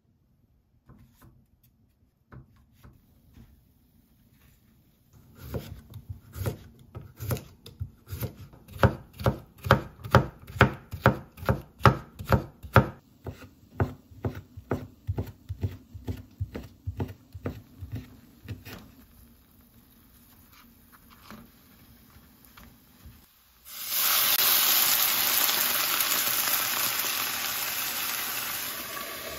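Kitchen knife chopping on a wooden hinoki cutting board, about two strokes a second, slicing ham. Near the end it gives way to a loud, sudden sizzle as spring rolls brown in sesame oil in a frying pan.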